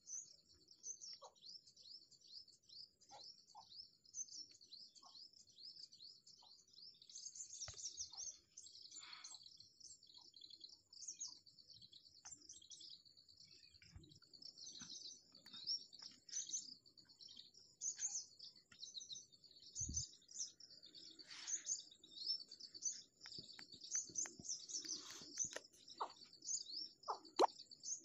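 Many small birds chirping continuously in a dense chorus, with a few scattered knocks and a low thump about twenty seconds in.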